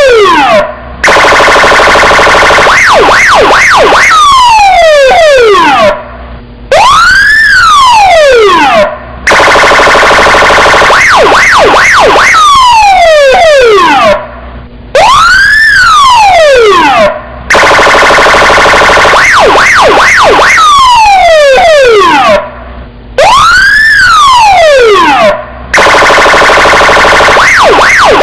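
Police car siren cycling through its tones: a wail that rises and falls, a buzzing steady tone with quick flutters in pitch, and a run of fast falling sweeps. Short gaps break the tones, and the same sequence repeats about every eight seconds.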